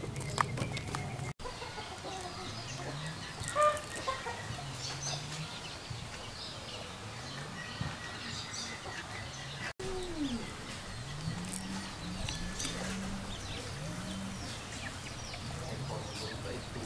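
Chickens clucking in a series of short low calls, with small birds chirping high over a steady outdoor background. The sound cuts out for an instant twice.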